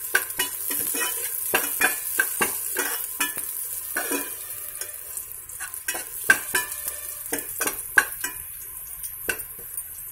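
Cashews and raisins frying in ghee, sizzling steadily, while a steel spoon stirs them in a metal saucepan, scraping and clinking against the pan at irregular intervals.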